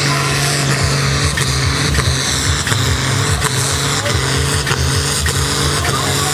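Diesel engine of a tractor-pulling tractor running loud and steady at high revs, its pitch holding nearly constant.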